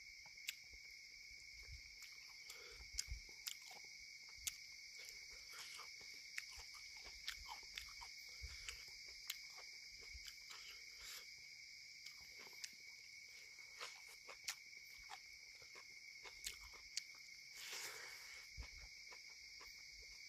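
Steady, faint chorus of night insects at two pitches, like crickets, with irregular soft clicks and smacks of someone chewing and picking at food with his hand close by.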